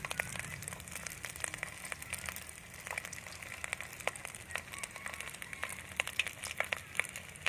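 Panko-coated rice and quail-egg balls deep-frying in hot oil: a steady sizzle with many sharp crackles and pops.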